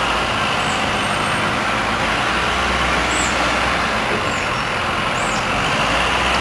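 General Tso's sauce, thickened with cornstarch, boiling in a wok over high heat: a loud, steady hiss and rumble with a few faint, high pops of bursting bubbles.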